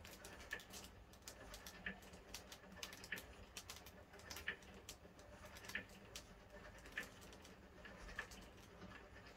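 Faint, evenly spaced clicks, about one every second and a quarter, from the winding mechanism of a Class 153 train's destination roller blind as it scrolls through its destinations, over a low hum.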